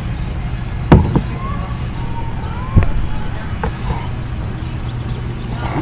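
Steady low background hum with two sharp clicks about two seconds apart, the first followed by a quick second tap.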